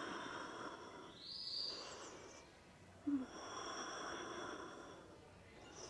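A woman breathing slowly and deeply, two long breaths, during a held yoga stretch. Faint steady high-pitched tones run behind, and there is a short low knock about three seconds in.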